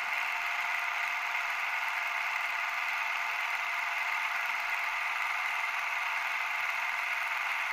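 Steady hiss like static or white noise, even and unchanging, thin and mid-pitched with no low end.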